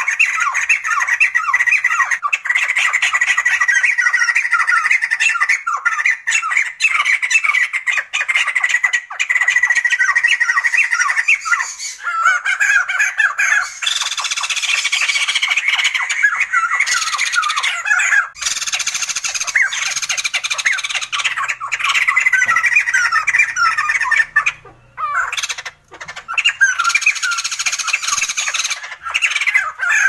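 Sumatran laughingthrushes calling in a dense run of quick, short notes, with a brief lull near the end.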